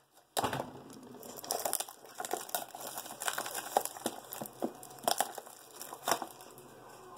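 A small cardboard Funko Mystery Minis blind box being handled and opened, with irregular crinkling, tearing and small clicks of cardboard and the wrapper inside.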